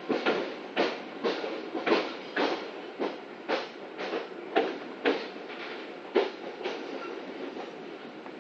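Moving passenger train heard from inside a coach: a steady rumble with the wheels clacking over rail joints about twice a second, the clacks thinning out near the end.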